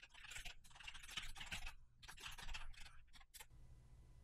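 Computer keyboard typing: quick runs of soft key clicks that stop about three and a half seconds in, leaving only a faint low hum.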